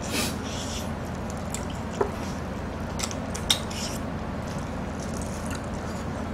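Mukbang eating sounds: wet chewing of sauce-covered chicken, with a few sharp clicks and taps on the dishes and trays, over a steady low background hum.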